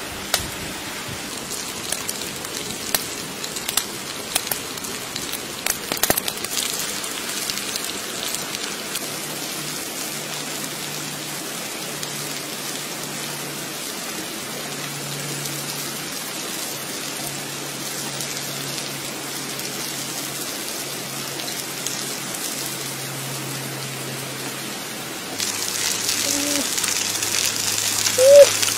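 Wood fire crackling under a stone slab, with sharp pops in the first several seconds over a steady hiss. About 25 seconds in, a louder, higher hiss sets in as baby corn sizzles on the hot stone, and near the end there is one brief, loud chirp-like sound.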